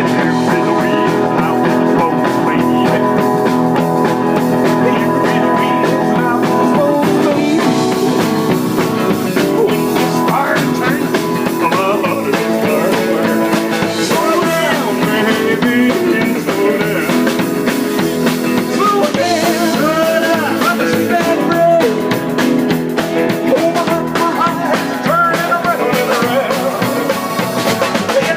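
Rock band playing, with electric guitar: held chords at first, then a wavering melody line over them from about ten seconds in.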